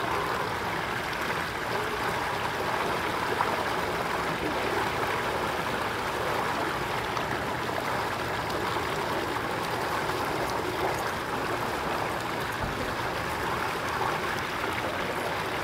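Water spilling through the notch of a small concrete dam spillway and splashing into the pool below: a steady, even rush of falling water.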